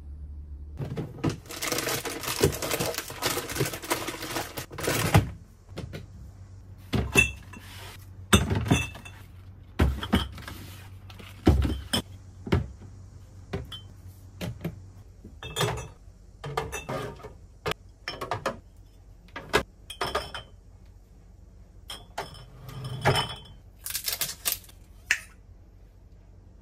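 Glass drink bottles clinking against each other and being set down with sharp knocks into plastic storage bins. A few seconds of dense continuous noise come about a second in, followed by scattered separate clinks and knocks.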